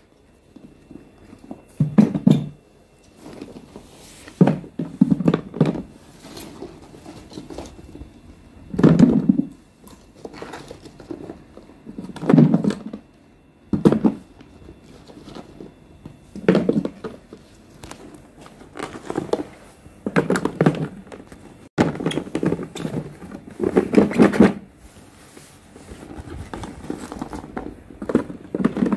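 Mixed pickle vegetables (carrot pieces, hot peppers, cucumbers, small eggplants) being dropped and pushed by hand into a large plastic jar, making about a dozen dull thunks a couple of seconds apart.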